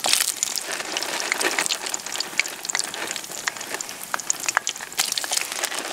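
Fries deep-frying in hot sunflower oil: a steady sizzle with many sharp crackles and pops.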